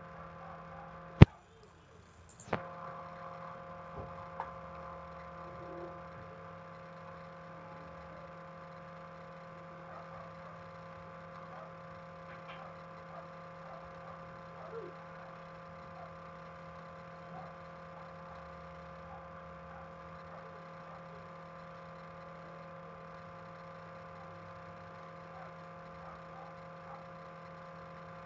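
Steady electrical hum made of several fixed tones. A sharp, loud click comes about a second in and a second click about a second later, followed by faint scattered clicks of a computer mouse.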